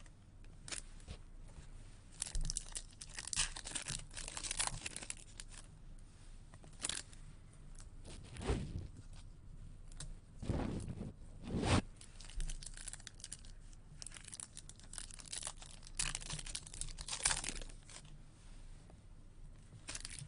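Foil trading-card pack wrappers being torn open and crinkled by hand, with cards rustling as they are handled. A few dull thumps come about halfway through.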